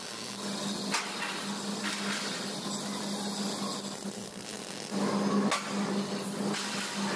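Manual stick (shielded metal arc) welding: the arc crackles and sizzles as tack welds are laid on a steel flat-bar frame, with a steady low hum underneath and a few sharp clicks.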